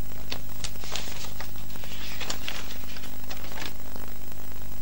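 Steady low hum and hiss with scattered faint crackles and clicks at irregular moments, typical of an old, worn television soundtrack.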